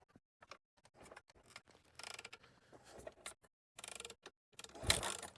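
Faint scattered mechanical clicks and rattles, with a louder burst of noise about five seconds in.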